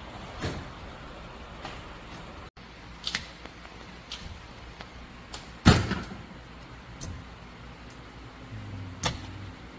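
Scattered metal clicks and knocks from small parts of a sewer-jetting nozzle and hand tools being worked on a steel bench, with one sharper knock about halfway through.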